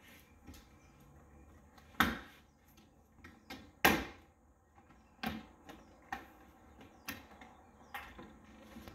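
Plastic trim clips snapping loose as the C8 Corvette's frunk cowl trim panel is pulled up by hand: about six sharp snaps, the two loudest about two and four seconds in, then smaller ones roughly a second apart.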